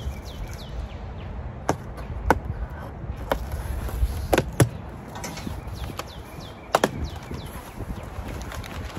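A handful of sharp knocks and clacks from cardboard boxes and their contents being handled, two close together about four and a half seconds in and a double knock near seven seconds. High, quickly falling chirps come and go behind them over a low steady rumble.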